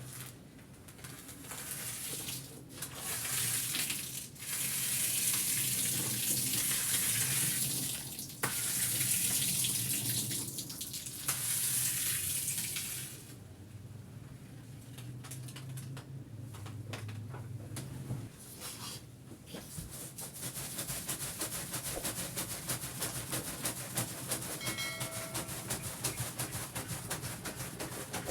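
Water spraying in several long bursts of hiss, over a low motor hum, during rug cleaning. A steadier, rapid rasping noise follows in the later part.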